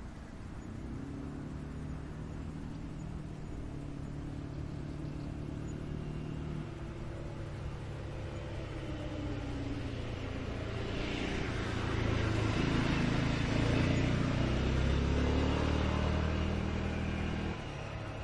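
A motor vehicle's engine running and coming closer, growing louder through the second half with rising tyre hiss, then cut off abruptly near the end.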